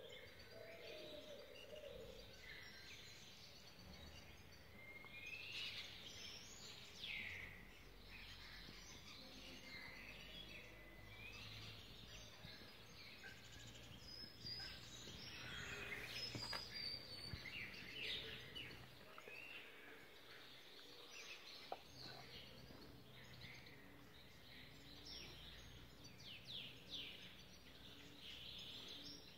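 Faint chirping and twittering of several small birds, short calls overlapping throughout, over a low steady hum.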